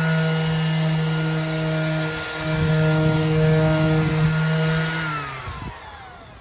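Bauer 20 V cordless 5-inch random orbital sander running, sanding paint off a board with a steady motor hum and a hiss, then switched off about five seconds in and winding down with a falling whine. It still makes a sound the owner takes for the rubber pad rubbing against the top of the housing.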